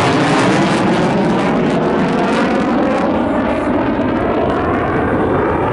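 Loud engine noise of Heritage Flight military aircraft flying past. The high end fades from about three seconds in as they move away.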